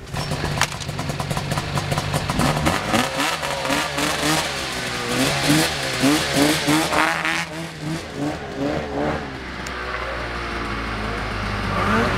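Snowmobile engines running, revved in short repeated bursts about twice a second over a steady low engine drone. Near the end one engine revs up with a rising pitch as a sled comes down the slope.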